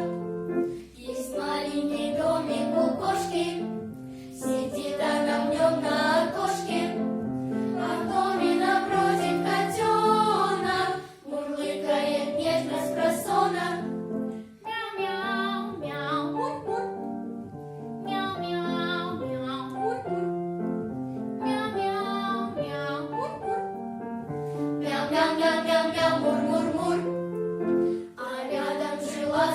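A children's vocal ensemble singing a song in phrases, with short breaks between lines, over an instrumental accompaniment.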